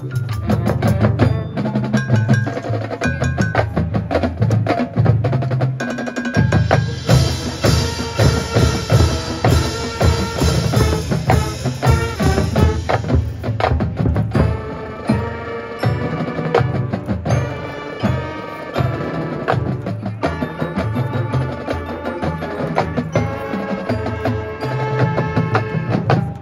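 High school marching band playing its field show: full band with heavy low brass, drumline strokes and front-ensemble mallet percussion, with a bright shimmering stretch in the middle.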